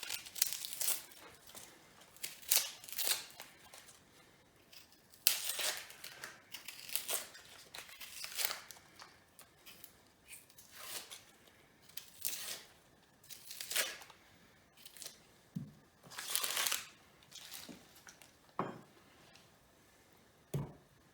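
Dry, papery onion skin being peeled and torn off by hand, in irregular short rips and crinkles.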